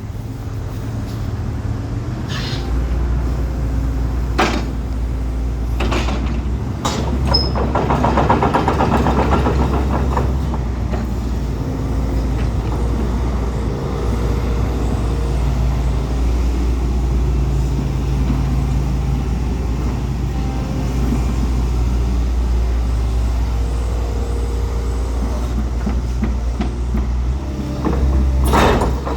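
Hitachi ZX135US-7 zero-swing excavator's diesel engine running steadily, with several sharp clanks and a rattling stretch about eight seconds in, and a louder burst near the end.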